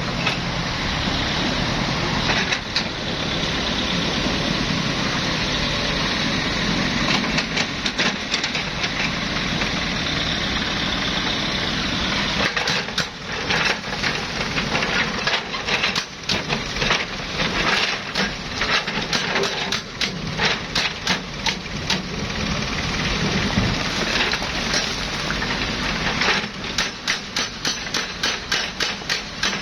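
Excavator's diesel engine running steadily under load, with repeated knocks and clatter of rock against the bucket and steel from about halfway through, coming in quick runs near the end.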